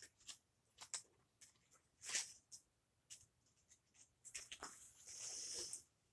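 Faint handling noises from someone rummaging through trading cards: scattered short rustles and clicks, with a longer scraping rustle about four and a half seconds in.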